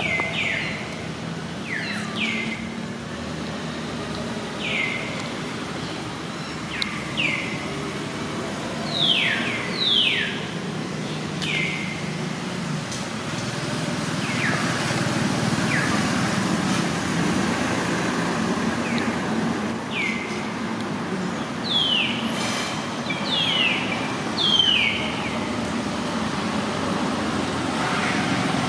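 Short, high-pitched animal calls, each falling quickly in pitch, about twenty of them scattered irregularly over a steady low motor hum.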